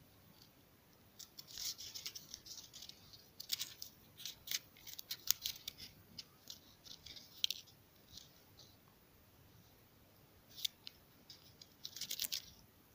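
A teething kitten gnawing on a wooden stick: quick, irregular crunchy clicks of its teeth on the wood, coming in clusters with short quiet gaps between them.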